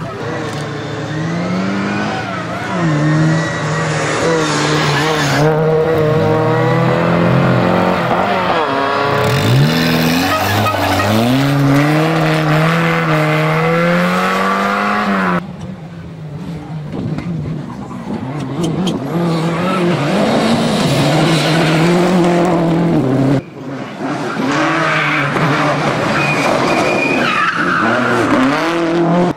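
Rally cars' engines revving hard, the engine note climbing and dropping again and again as the cars accelerate and change gear through corners, with some tyre skidding. Several short clips of different cars follow one another, each cutting in abruptly.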